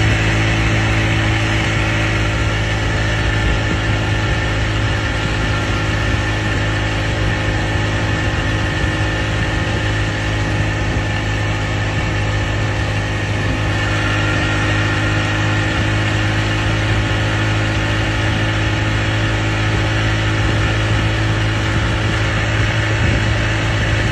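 Speedboat motor running steadily at an even pitch.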